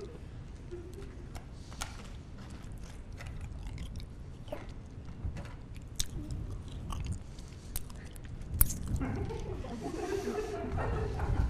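A person chewing and crunching something hard right at a microphone: irregular sharp crunches and clicks over a low rumble.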